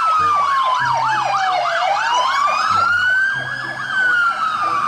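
Police car siren: a slow wail that falls, then rises and falls again, overlaid with a fast yelp of about three sweeps a second.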